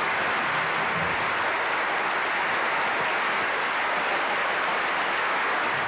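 Studio audience applause, steady throughout and cut off sharply at the end.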